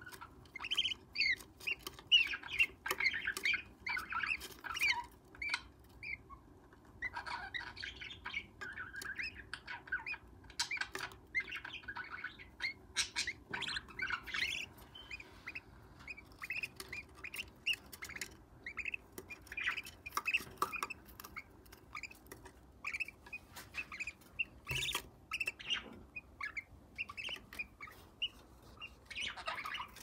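Parrot chicks in a wooden nest box giving short, raspy chirping calls in repeated runs, with a few sharp clicks from the box.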